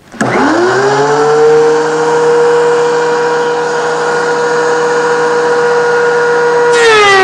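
Thickness planer switched on: its motor spins up with a rising whine and then runs steadily. Near the end, a board enters the cutterhead for a light pass to take off about 1/32 inch. The motor's pitch drops under the load and the hiss of the cut joins in.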